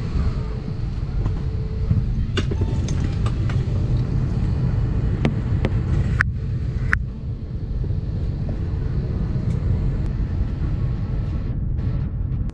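Steady low rumble of airliner cabin noise, with two sharp clicks about a second apart a little past the middle.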